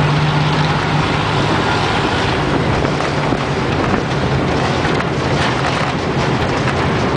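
Engine of a 1949 American LaFrance fire truck running steadily under way, heard from the cab, with a low engine hum mixed with wind and road noise.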